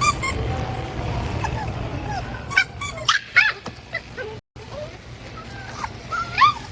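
Puppies whimpering and yipping in short, high, bending calls: a cluster near the middle and another near the end, over a low background rumble.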